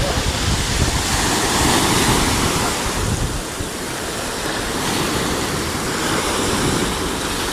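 Sea waves washing onto the shore: a steady rush of surf that swells about a second in and again around five seconds.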